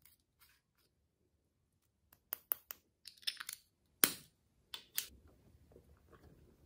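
Sharp clicks and taps from a small plastic pot of powder pigment being handled and tapped out. A handful of clicks come from about two to five seconds in, the loudest just after four seconds, with faint handling noise after.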